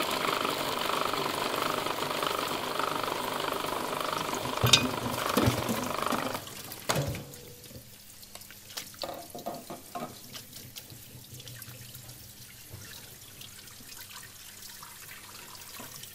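Electric food processor motor running as it chops onion, then stopping abruptly about six seconds in. Afterwards there are quieter knocks and clatter of kitchen utensils, with water at a sink.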